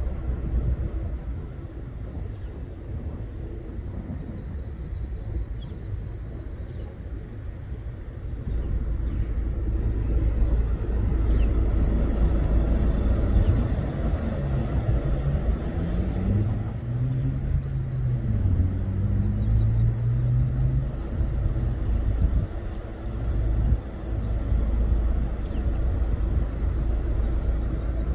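Low engine rumble that grows louder about eight seconds in, with a tone that wavers up and down for several seconds midway.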